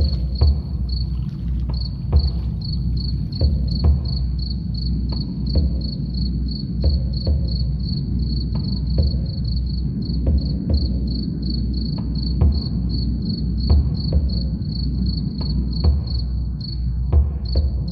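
Cricket chirping steadily, about three to four chirps a second, over a low drum beat that thumps roughly once a second.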